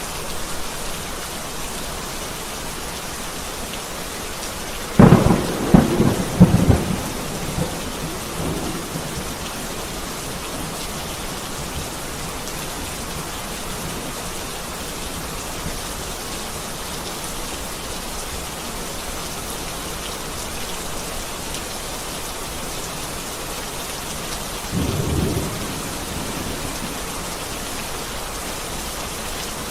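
Heavy rain falling steadily, with a loud clap of thunder about five seconds in that breaks into several sharp cracks and rumbles for a few seconds. A shorter, quieter roll of thunder comes near the end.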